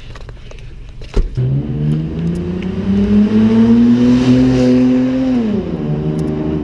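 A car with its muffler spaced off, making a deliberate exhaust leak, accelerating: after a sharp click about a second in, the engine note climbs steadily in pitch for about four seconds, then falls away near the end.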